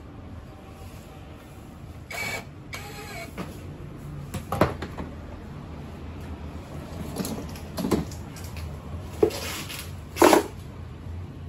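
Plastic and metal parts of a children's electric ride-on motorbike being handled and knocked together during assembly: scattered knocks and clatters over a steady low hum, with a loud crinkle of a plastic parts bag near the end.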